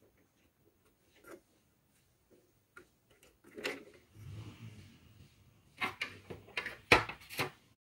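Irregular clicks and knocks of small printer parts being handled and fitted inside an opened Brother DCP-1510 laser printer during reassembly, sparse at first and coming thicker in the second half, with the loudest knock near the end.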